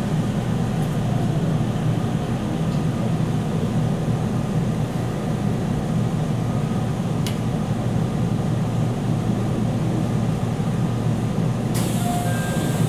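Cabin noise inside a JR Central 313-series electric train, a steady low rumble as it slows and stops at the platform, with a sharp click about seven seconds in. Near the end a sudden hiss starts, typical of the pneumatic doors opening.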